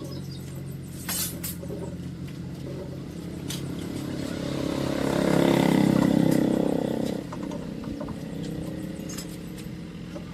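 A motor vehicle passing by, growing louder to a peak about six seconds in and then dropping off quickly, over a steady low engine hum.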